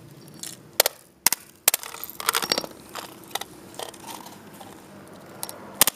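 Hammer blows on the plastic case of a Sunbeam electric blanket remote resting on gravel, a series of sharp, irregular knocks as the case is beaten to crack it open.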